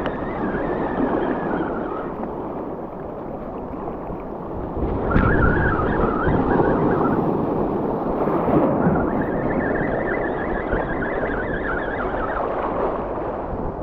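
Surf washing through shallow water over reef rocks, with wind rumbling on the microphone; it grows louder about five seconds in.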